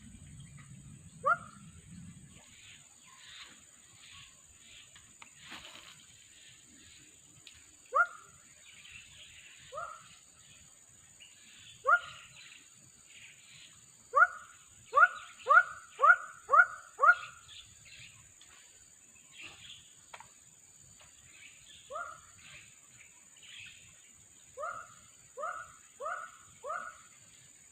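An unseen animal giving short, sharp calls that each rise quickly in pitch. They come singly at first, then in a quick run of seven at about two a second, then four more near the end, over a steady high-pitched insect drone.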